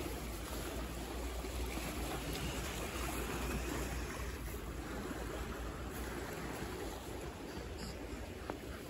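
Steady wash of sea water against a concrete seawall, with a low rumble underneath.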